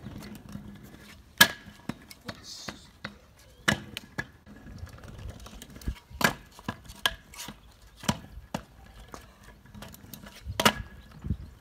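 Stunt scooter hopped and landed on block paving: about five sharp clacks of the deck and wheels hitting the ground, a second or two apart, with smaller knocks and wheel rumble between.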